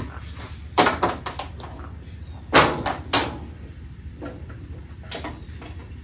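Knocks and clatters from handling the washing machine's hinged metal top panel while tying it open with a bungee cord: a loud bang under a second in and another about two and a half seconds in, each followed by a few lighter raps, and a softer knock near the end.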